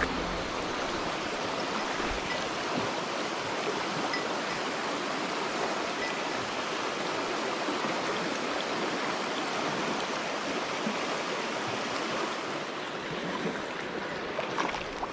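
Mountain stream water running steadily, an even rushing sound.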